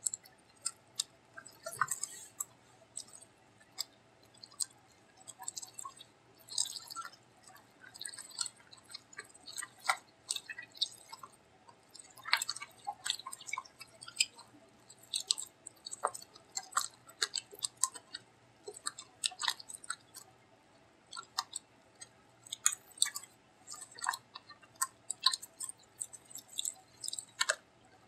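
Hands squeezing and kneading freshly mixed borax-and-white-glue slime in a plastic tub. The sound is irregular, quick wet squelches and sticky clicks as the slime is worked.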